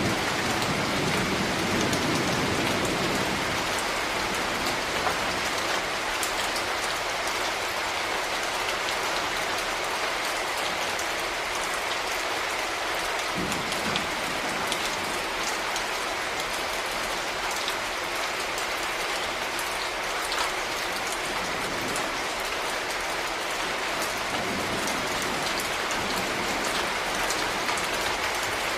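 Steady, dense rain falling, with many small drop impacts. A low rumble of distant thunder fades out over the first few seconds, and fainter low rumbles return briefly twice.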